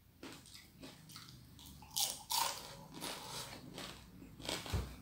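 Close-up crunching and chewing of crispy deep-fried fish, with loud crunches about two seconds in and again near the end. A dull thump comes near the end.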